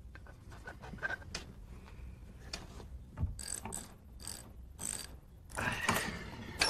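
Combination dial of a wall safe being turned by hand, giving a run of ratcheting clicks. The clicks grow louder and sharper about three seconds in, and a louder noisy stretch follows near the end.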